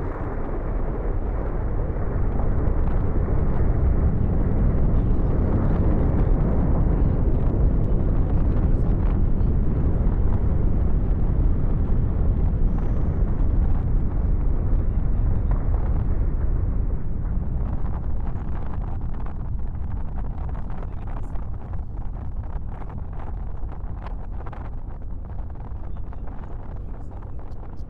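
Lava fountain erupting from the Fagradalsfjall volcano's crater: a deep, continuous rushing rumble that swells a couple of seconds in and eases off over the last ten seconds, with faint crackling ticks in the second half.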